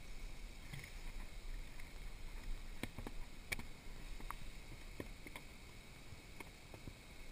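A small tarpon flopping on a boat's carpeted deck and against the gunwale: scattered light knocks and slaps, irregular, mostly in the second half.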